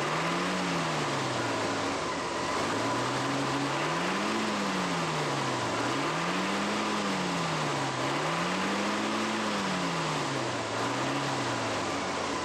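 Truck engine running on white gasoline vapor drawn through a homemade intake duct, revved up and let drop back to idle about five times, its pitch rising and falling with each blip.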